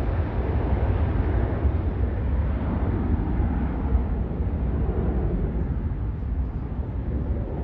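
Jet roar from a Boeing 717's two rear-mounted Rolls-Royce BR715 turbofans at takeoff power as the airliner climbs away: a steady deep rumble whose higher hiss slowly fades.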